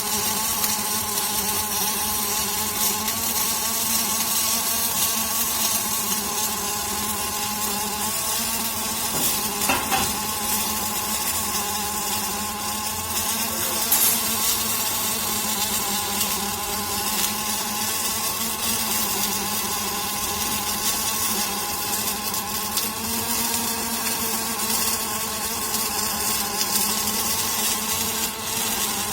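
Robotic laser welding machine running: a steady electrical buzz under a high hiss, with a faint click about ten seconds in and another about fourteen seconds in.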